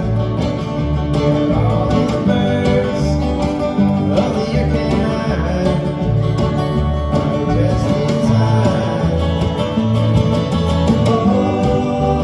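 Live bluegrass band playing with a steady beat: banjo, fiddle, acoustic guitars and a resonator guitar.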